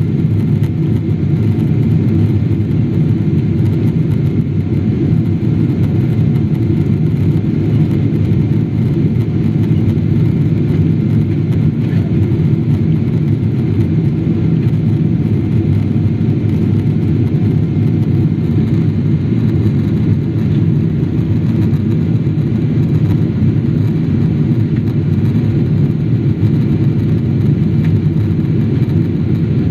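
Cabin noise inside a Boeing 777 climbing after takeoff: a loud, deep, even drone of the jet engines and rushing air, unchanging throughout.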